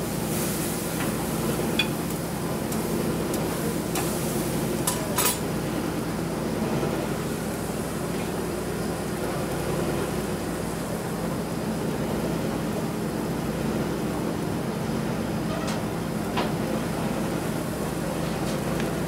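Restaurant kitchen clatter: a few sharp clinks of dishes and utensils over a steady background hum.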